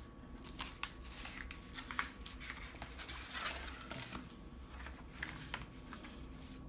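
Cardboard and paper sheets being handled and unfolded: quiet rustling and crinkling with scattered light taps, a louder rustle about three and a half seconds in.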